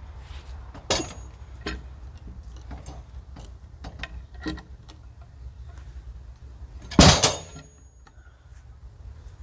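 Metal clanks and knocks from a portable band sawmill being worked while a log is set up, a few light knocks and one loud clank about seven seconds in with a short high ring after it, over a steady low rumble.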